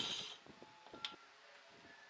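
Handheld circular saw cutting wood, its sound dying away within the first half second, then faint quiet with a single small click about a second in.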